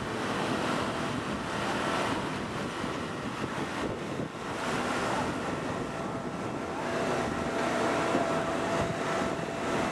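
Engine-driven hydraulic power unit for the rescue tools running steadily: an even, noisy drone with no sharp impacts.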